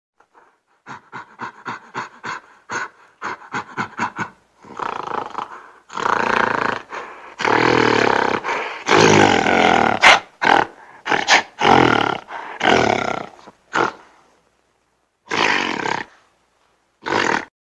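Gorilla vocalising: a quick run of short, rapid calls builds into a series of long, loud roars, followed by two short roars near the end.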